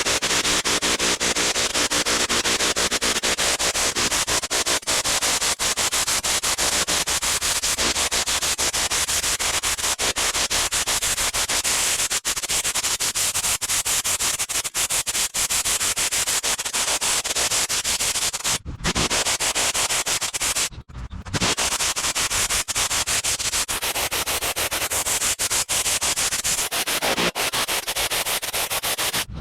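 Pressure washer running, a steady hiss of spraying water over a low engine drone, cut off briefly twice.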